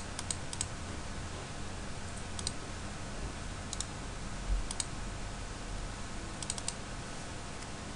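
Computer mouse clicks, single and in quick pairs, scattered a second or so apart, over a steady low hum.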